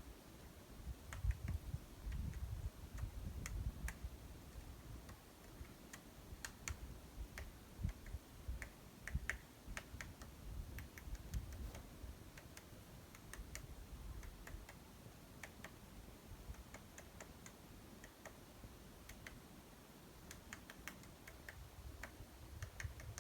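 Woodpecker pecking: light, sharp taps coming irregularly, singly or a few close together, not a drum roll. A low rumble runs underneath, strongest in the first few seconds.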